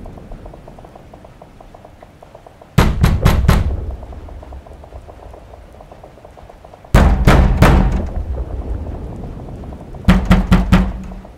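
Three bouts of heavy pounding, each a quick run of three or four loud thuds that die away, about four seconds apart, over a low dark drone.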